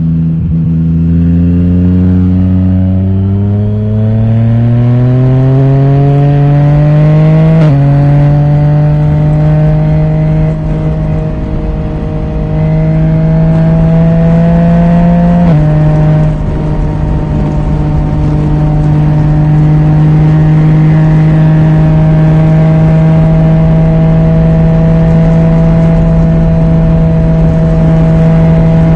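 Yamaha Tracer 900 GT's 847 cc inline-three running through an Akrapovic titanium exhaust with the dB killer removed, heard onboard. The revs climb under acceleration, drop sharply at an upshift about eight seconds in, climb again, drop once more at a second upshift about halfway through, then hold steady at cruising speed.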